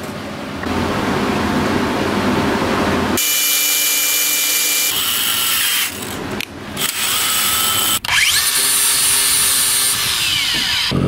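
Power tools in a run of short segments: an electric drill whining as it drives a tap into an aluminium block, and an angle grinder running, its whine falling near the end as it spins down.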